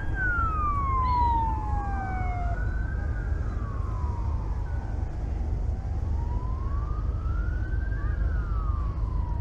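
An emergency vehicle's siren in a slow wail, its pitch rising and falling about every five seconds, over a steady low rumble.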